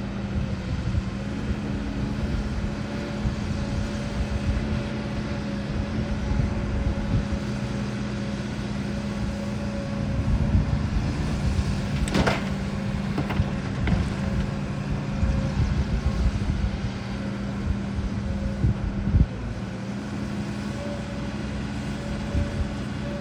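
HIDROMEK HMK230LC excavator's diesel engine running steadily under working load. A sharp clank comes about halfway through, with a few lighter knocks after it, and a short loud knock later on.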